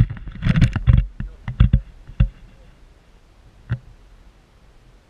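Handling noise on a hand-held pole camera: a run of loud bumps and rustles over the first two seconds, then a single click, with faint background after it.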